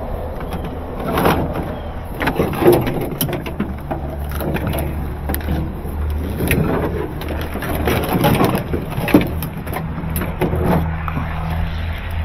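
Corrugated plastic washing-machine drain hoses and plastic washer parts rustling, scraping and clattering as they are rummaged through and pulled out of a tangled pile in a pickup bed. A steady low hum runs underneath.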